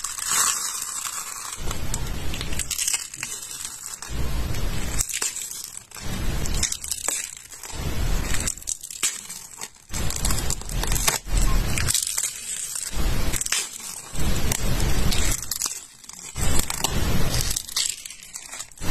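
Thin dried clear film crackling and tearing as it is peeled with tweezers from small dishes, coming in repeated bursts of crisp crinkling with short pauses between.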